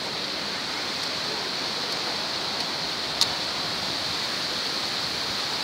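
Steady rush of fountain water jets splashing into a pool, with a single sharp click about three seconds in.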